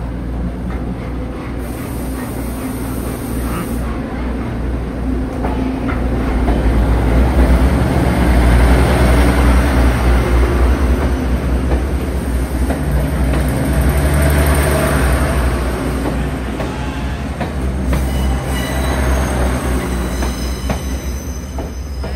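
Train passing close by on the tracks, its rumble building to a peak mid-way and then fading, with wheels squealing on the rails.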